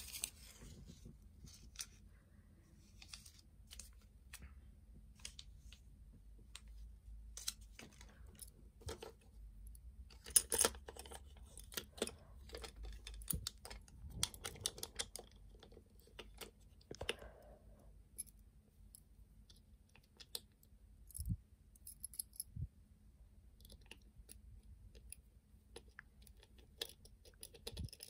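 Handling of a toy electric train model's small plastic parts: scattered light clicks and taps, with stretches of soft rubbing as a dirty spot is wiped clean.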